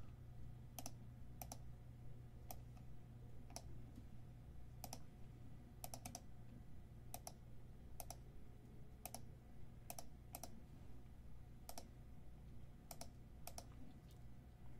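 About twenty faint, sharp single clicks at uneven intervals, roughly one every half second to second, over a low steady hum.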